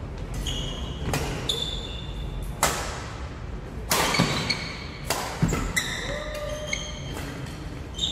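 Badminton rackets striking the shuttlecock in a fast doubles rally, sharp knocks about once a second, with sneakers squeaking on the wooden court in between.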